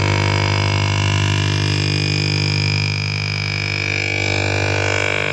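Steady electronic drone of many stacked tones over a low hum: a shortwave radio signal picked up by home-built crystal radio sets and played through loudspeakers, which the uploader takes for a HAARP transmission.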